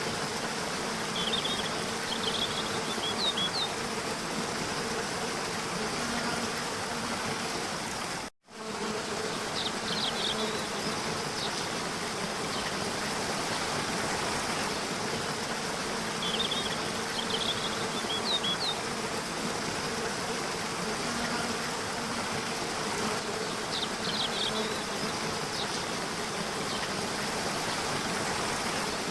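Steady rush of waterfall water with a low insect buzz, and short high bird chirps that come back in the same pattern every several seconds. The sound cuts out completely for a moment about eight seconds in.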